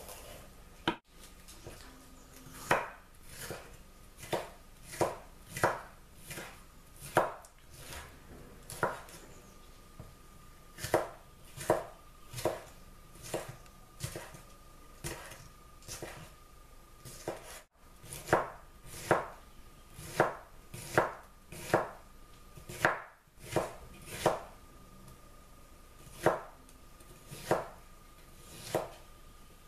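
Knife chopping bell peppers on a wooden cutting board: a long series of single sharp chops, about one a second, each stroke striking the board.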